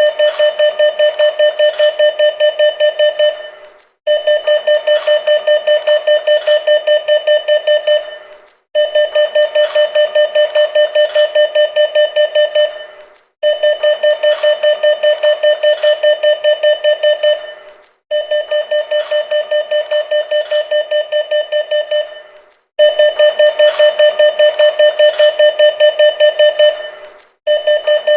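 Bank machine (ATM) card warning beeps: a rapid train of short, high beeps, about four or five a second, in runs of about three and a half seconds separated by brief pauses, repeating over and over.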